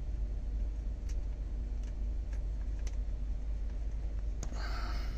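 A few faint, light clicks as a nut is spun by hand onto a starter motor mounting stud, over a steady low hum, with a brief scraping rustle about four and a half seconds in.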